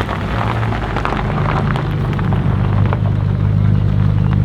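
Jaguar F-Type Project 7's supercharged V8 engine running steadily at low revs, a deep even exhaust note that barely changes in pitch.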